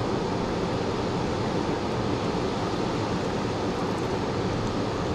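Steady rush of water pouring over a dam spillway, an even, unbroken noise.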